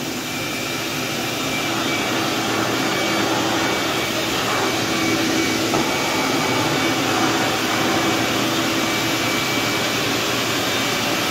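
Craftsman 10-gallon, 6-horsepower wet/dry shop vac running steadily, a whine over a rush of air, as its floor nozzle is pushed across rubber floor mats.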